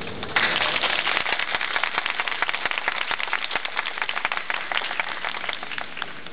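Audience applauding, starting abruptly about half a second in and dying away near the end.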